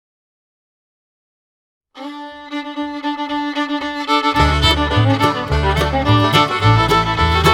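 Silence for about two seconds, then background music starts with held string notes; a bass line and a steady beat come in about four seconds in.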